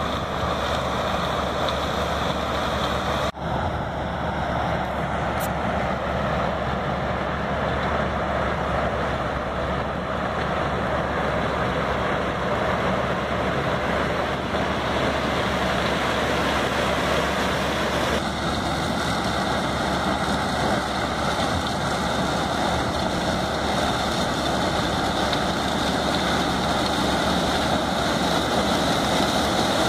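New Holland TX-series combine harvester working under load as its corn header cuts standing grain maize: a steady, dense mechanical noise from the engine and threshing gear. The sound changes abruptly about three seconds in and again around eighteen seconds.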